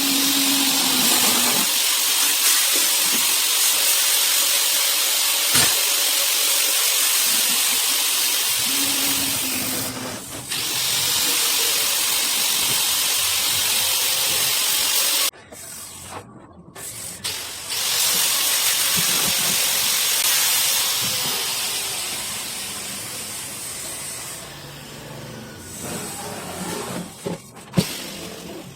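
Loud, steady hiss of compressed air from a workshop air tool, in a long burst that cuts off abruptly about halfway through, then starts again briefly and trails off.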